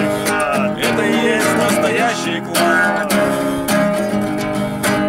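Acoustic guitar strumming, a stretch of a song played with no singing.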